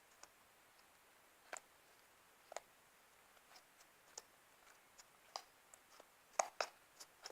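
Fluffy slime crackling as it is worked in the hands: faint, scattered little pops and clicks, a few at first and coming more often near the end.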